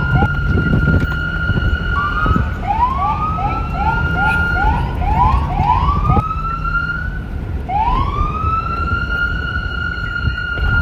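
Police car siren: quick rising chirps a few times a second with a steady high tone held over them, then near the end a long rising sweep that levels off into a held tone. A low rumble runs underneath.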